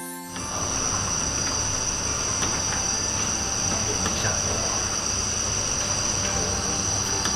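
Steady, high-pitched insect chirring, like crickets on a summer night, over a background hiss and a low hum. It starts abruptly just after the music cuts off.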